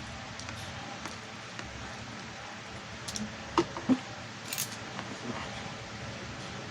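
A few short sharp clicks and snips of a hand tool cutting and stripping the outer jacket off a LAN cable, the loudest two close together about midway, over a steady background hiss.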